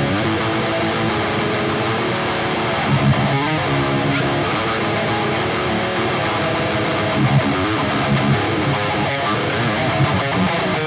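Distorted electric guitar playing a fast, heavy metal riff.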